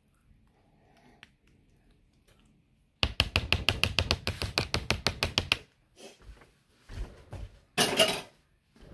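A metal spoon tapping rapidly against a disposable aluminium foil pan, about eight quick taps a second for two and a half seconds, then a few softer knocks and a short, louder rustling scrape near the end.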